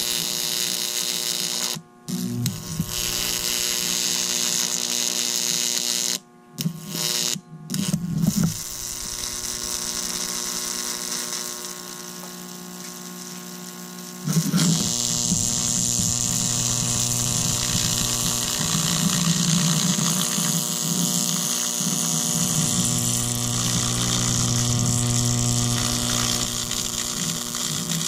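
A 12,000-volt electric arc buzzing as it jumps from the electrode tips onto a battery, a harsh, steady buzz with a mains-hum pitch. It cuts out briefly about two seconds in and a few times between six and eight seconds, is quieter for a few seconds, then buzzes louder again from about fourteen seconds on.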